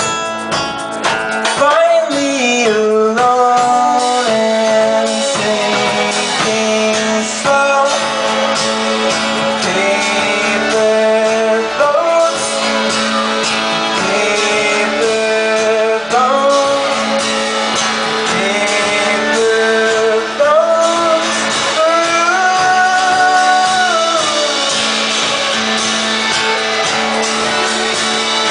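Live band music: guitar with a voice singing long, gliding held notes over a steady low drone.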